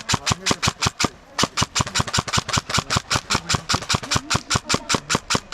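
Airsoft rifle firing on full auto in rapid bursts, about eight shots a second, with one short pause about a second in.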